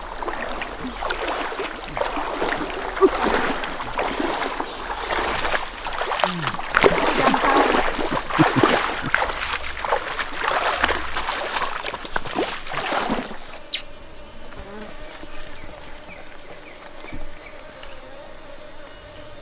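River water splashing and sloshing as people wade through shallow water hauling a net, in irregular surges. About two-thirds of the way through this cuts off suddenly, leaving a steady insect hum.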